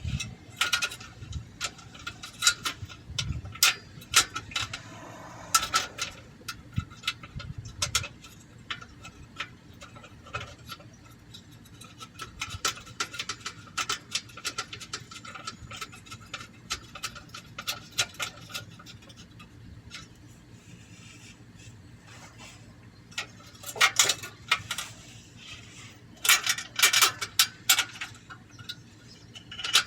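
Irregular metallic clicks and clinks from bolts and the sheet-metal catalytic converter heat shield being handled while the mounting bolts are started. There are quicker runs of clicking about two-thirds of the way in and again near the end.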